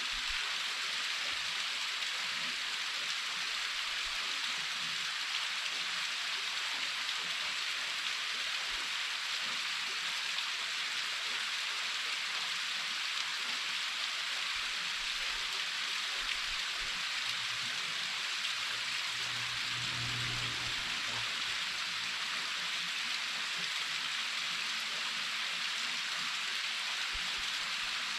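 Waterfall pouring over rock, heard from close to its lip: a steady, even rush of falling water.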